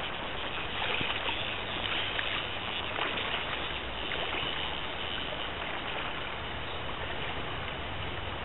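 Shallow river running over a riffle: a steady rush of water.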